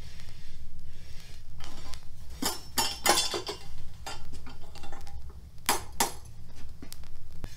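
Metal tongs clinking and scraping against an iron wood stove and a metal samovar as hot coals are lifted out of the firebox. A few sharp clinks come about two and a half and three seconds in, with a short ringing cluster, and two more near six seconds.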